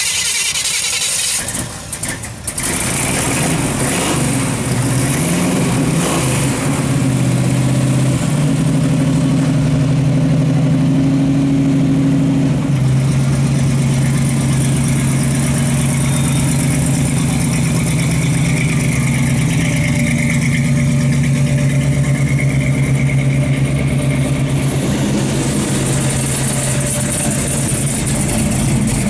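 Engine of a vintage hot rod pickup truck starting up about two seconds in, revving up and back down briefly, then running steadily at idle.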